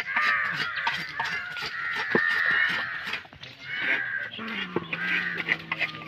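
Several cats mewing and yowling over and over, calls overlapping. Sharp knocks of a machete chopping fish on a wooden block come through now and then.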